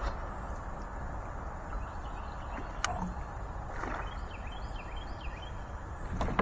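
Steady outdoor background hiss with a low rumble, broken by one sharp click about three seconds in and a few faint, short bird chirps just after the middle.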